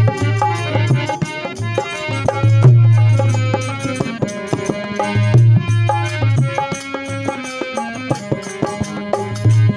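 Instrumental music from a Hindi devotional bhajan to Ram: melody notes over a quick hand-drum rhythm with a deep recurring bass stroke.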